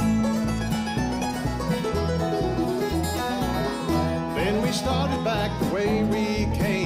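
Bluegrass band playing an instrumental break: picked mandolin, banjo and guitar over an upright bass line. From about four seconds in, a dobro's sliding notes come to the fore.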